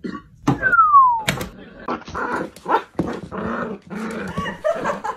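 A dog growling and whimpering in a run of short sounds from about two seconds in. Before that come a few clicks and a short falling whistle-like tone.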